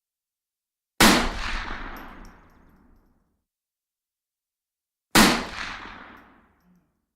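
Two rifle shots about four seconds apart, each a sharp crack followed by a long echoing tail that dies away over about two seconds.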